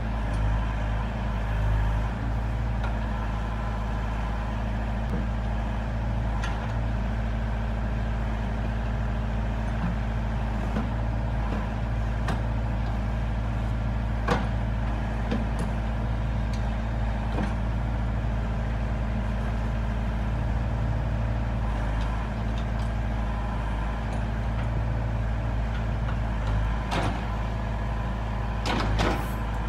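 Doosan 60-7 mini excavator's diesel engine running steadily under hydraulic load as the arm and bucket work, with a few sharp clanks scattered through it, the loudest about halfway and near the end.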